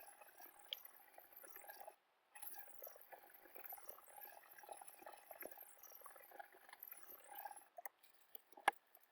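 Knife blade scraping on a wet whetstone: a faint, steady gritty scrape with small clicks. It stops for a moment about two seconds in, and near the end gives way to a few scattered clicks and one sharp tick.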